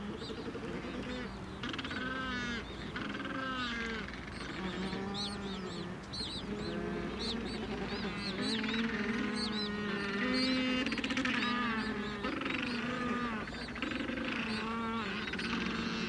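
Macaroni penguin colony calling: many overlapping calls, low drawn-out ones mixed with high, short chirping ones, without a break.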